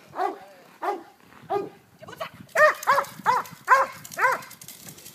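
A dog barking repeatedly: three spaced barks, then from about halfway a run of five quicker, louder barks. A steady hiss comes in at about the same point.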